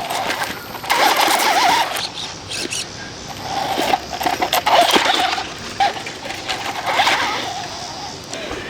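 Electric 1/10 RC monster truck driven in short bursts of throttle, the motor's whine wavering up and down over the hiss and clatter of its tyres, three times.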